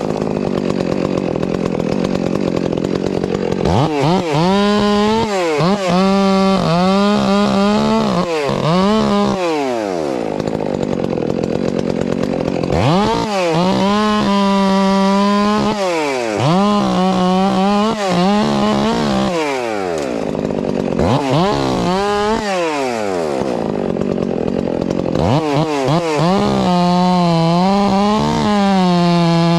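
Chainsaw cutting through a large ash log. The engine holds steady under load in the cut for several seconds at a time, and between cuts its revs fall and climb again many times as the throttle is let off and squeezed. The engine note drops away briefly twice.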